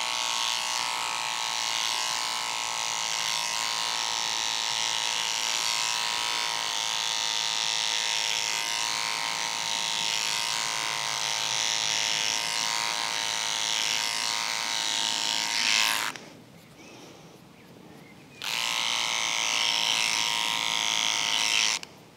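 Cordless beard trimmer running with a steady buzz as it cuts along the side of a beard. It is switched off about sixteen seconds in, then runs again for about three seconds before being switched off once more.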